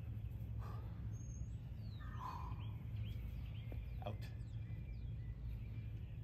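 Low steady outdoor rumble with faint bird chirps repeating in the background, and one brief soft sound about two seconds in.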